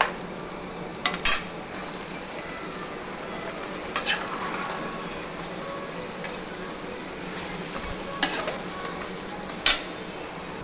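Chicken pieces sizzling in a frying pan while a metal spatula stirs them, with several sharp scrapes and knocks of the spatula against the pan, the loudest near the end.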